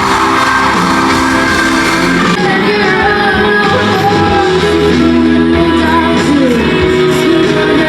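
Rock music with guitar and a singing voice, loud and steady; the sung melody comes in clearly about two and a half seconds in.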